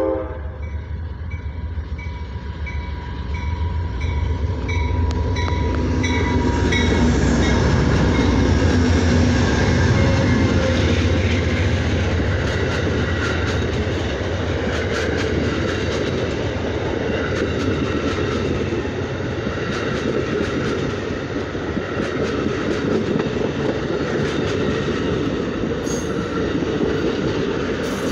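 Amtrak passenger train passing close by at speed. The locomotive's rumble builds to its loudest about eight to ten seconds in, then the stainless-steel passenger cars go by in a steady roar with rapid clicking of wheels over the rails. A regular high ding, about three a second, sounds over the first several seconds.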